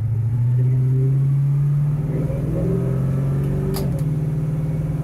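1969 Ford Mustang's engine pulling under way, heard from inside the cabin, its note stepping up a little in pitch about half a second in and again around two seconds, then holding steady. A short sharp click about four seconds in.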